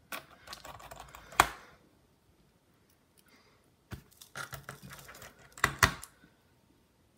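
Precision screwdriver driving bottom-case screws into a MacBook Air: two bursts of small metallic clicks and rattles, the first ending in a sharp click about a second and a half in, the second ending with two sharp clicks close together.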